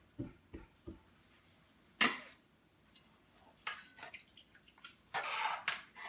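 A spoon clanking and scraping in a large metal cooking pot as rice is stirred: a few soft knocks at first, a sharp clank about two seconds in, and a longer scrape near the end.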